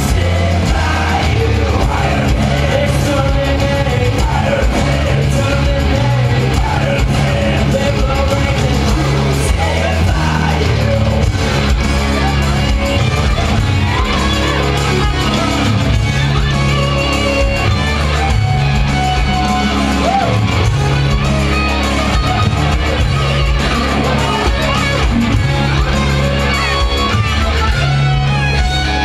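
Live rock band playing loud on stage: electric guitars over a stepping bass line, with singing or shouting over it.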